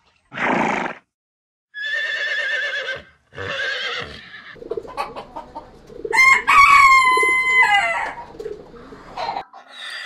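A horse gives a short snort, then two quavering whinnies. About six seconds in, a rooster crows once, a long call that falls away at the end.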